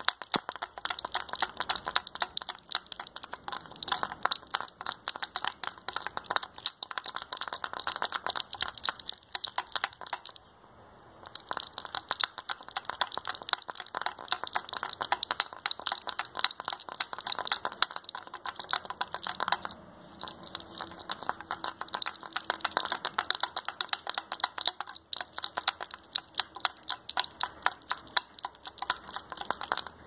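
Dried aguaí seeds rattling against one another when shaken, a fast, dense clatter of small clicks with a short pause about ten seconds in.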